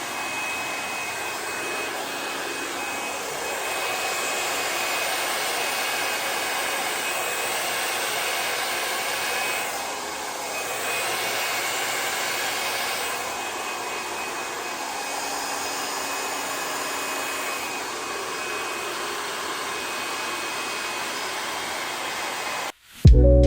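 Hair dryer blowing steadily with a faint high whine, its level swelling and easing a little a few times. It cuts off abruptly near the end, where music starts.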